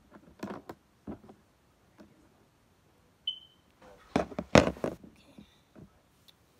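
Small toys and paper props being handled: scattered light taps and clicks, a brief high squeak about three seconds in, and a louder burst of rustling a little past the middle as a paper present is opened.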